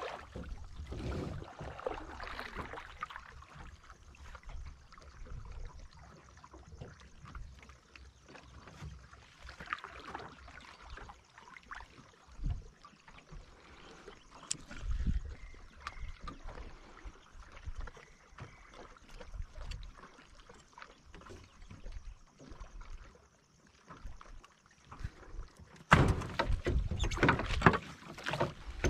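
Sounds aboard a small wooden fishing boat while a hooked line is hauled in by hand: faint water and handling noise with irregular soft knocks, then a louder rush of noise for the last three seconds.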